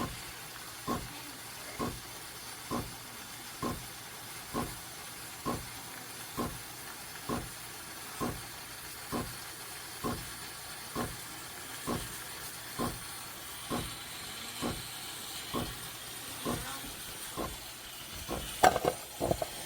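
Espresso machine's automatic steam wand frothing milk in a stainless steel jug: a steady hiss of steam with a soft regular pulse about once a second. A few louder knocks near the end.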